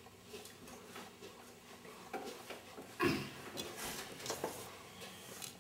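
Hands mixing flour and water into dough in a stainless steel pot: faint rustling and light knocks against the pot, with a louder bump about three seconds in.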